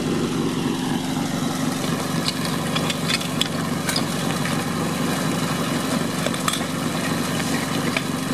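Portable fire-pump engine idling steadily, with a few sharp metallic knocks as suction hoses and couplings are handled at the pump.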